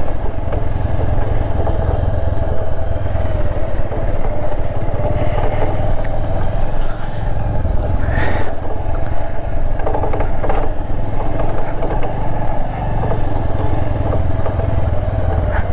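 Motorcycle running steadily under way on a rough off-road track, with a heavy low rumble and a few clattering knocks about eight and ten seconds in.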